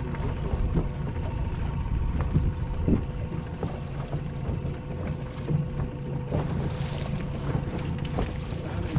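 Wind buffeting the microphone, with choppy water slapping against the boat hull, a steady hum underneath and scattered small clicks.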